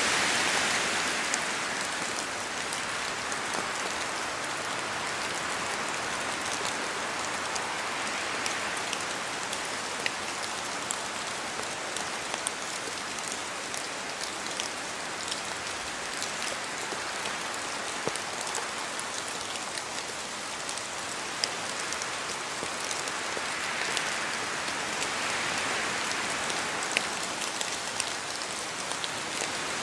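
Steady rain falling in a forest, a continuous hiss dotted with the sharp ticks of single drops falling from the trees. The hiss swells a few times as wind gusts through, near the start, about a third of the way in and again near the end.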